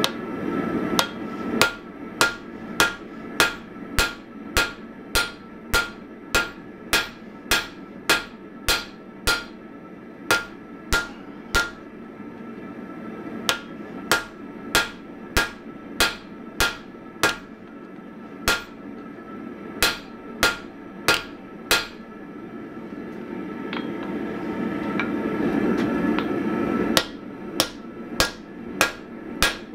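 Hand hammer striking red-hot steel on an anvil in a steady rhythm of about three blows every two seconds, each blow giving a short metallic ring from the anvil. The blows stop for a few seconds while a rushing noise swells, then resume faster near the end.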